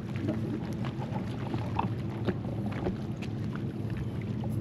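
Boat engine running steadily with a low hum, with scattered faint clicks and short chirps over it.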